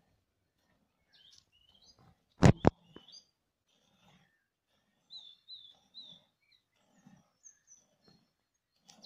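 A cow being hand-milked into a steel pail: soft squirts of milk into the pail, coming about every half second in the second half, while small birds chirp. Two sharp knocks about two and a half seconds in are the loudest sounds.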